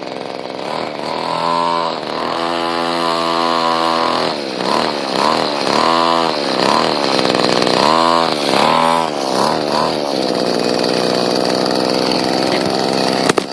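Small two-stroke string-trimmer engine in a homemade RC car, revving up and down in repeated throttle surges, then settling to a steadier, lower run. A sharp click near the end.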